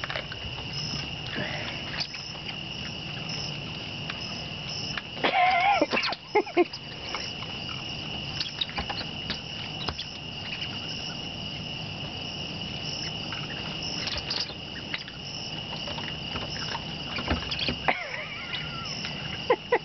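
Crickets trilling steadily, with scattered clicks and knocks from a young raccoon handling a cat toy on a wooden deck. About five seconds in there is a brief louder sound with wavering pitch.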